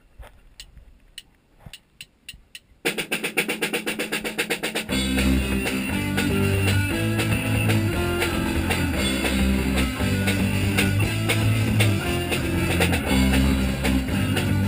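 Band rehearsing live: a few faint clicks, then guitar strumming comes in about three seconds in. About two seconds later the drum kit and low bass notes join for a full, steady band sound.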